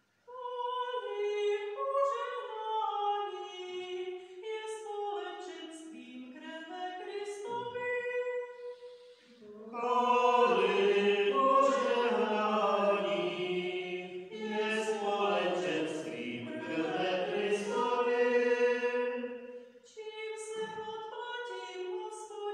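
Liturgical singing of the psalm after the first reading of the Mass. A woman's voice sings a solo line. About ten seconds in, a louder, fuller passage with a lower part joins for about ten seconds, then the single high voice carries on alone near the end.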